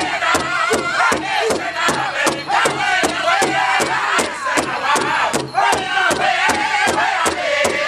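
Northern-style powwow drum group: several men strike one large hide drum together in a fast, even beat while singing in unison in high, wavering voices.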